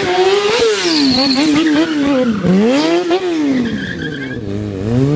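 Motorcycle engine revving hard during stunt riding, its pitch swinging up and down several times, sinking about two and a half seconds in and lowest near the end before climbing again, with the tyres skidding on the paving.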